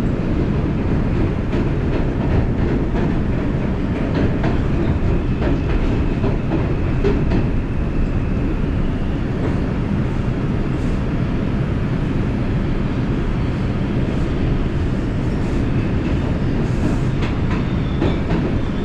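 New York City subway 5 train running between stations, heard from inside the car: a steady low rumble of steel wheels on the track with scattered clicks and clacks over rail joints. A faint high whine joins about halfway through.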